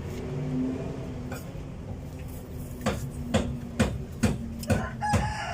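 Hammer blows, struck at about two a second, begin about three seconds in over a low steady hum.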